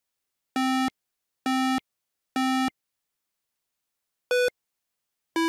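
Electronic beeps: three identical low buzzy tones about a second apart, then after a pause two short higher beeps, the last one stepping up in pitch.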